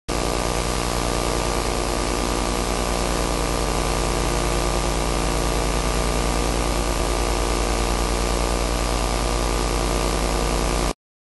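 Steady electrical hum and hiss: a low buzz with several steady tones over a wide hiss, starting suddenly and cutting off suddenly.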